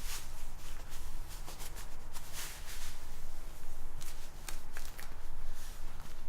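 Repeated close rustling and brushing sounds with a few sharp clicks, over a low steady hum.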